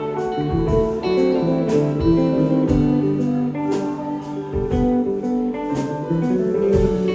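A live band playing an instrumental passage: guitar lines over bass, with a steady beat of cymbal-like strokes about twice a second.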